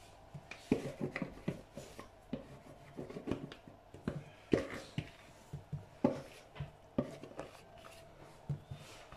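Risen pizza dough being worked by hand on a floured granite countertop: irregular soft thumps and knocks as the dough is pressed and turned against the stone.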